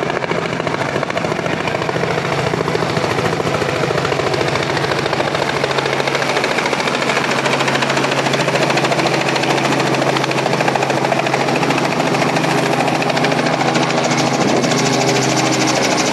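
Robinson two-blade light helicopter coming in to land, its rotor chopping steadily and its engine running, the sound growing slightly louder as it descends and settles on the pad.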